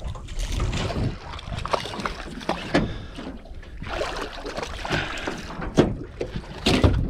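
Water sloshing around a small fishing boat with irregular knocks and handling noises, and wind on the microphone.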